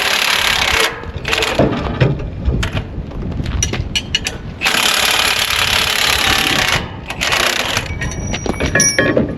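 Arc welding on a cracked skid steer frame: the arc crackles and sizzles in two runs of about one and two seconds. Metal knocks and clinks come between the runs, and a few short ringing clinks come near the end.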